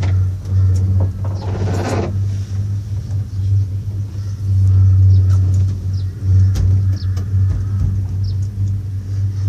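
Steady low hum and rumble inside a moving cable-car gondola cabin, with a few faint clicks.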